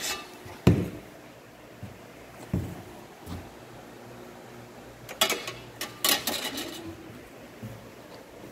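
Long steel tape measure blade knocking and rattling against a steel workbench: a sharp knock about a second in, a couple of lighter taps, then a burst of metallic clatter and scraping about five to seven seconds in.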